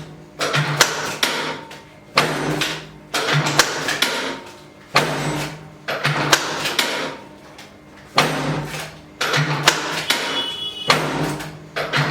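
Chiropractic drop table's spring-loaded sections dropping under the practitioner's thrusts: a series of sharp clacks, one every one to two seconds, each with a short rattle after it.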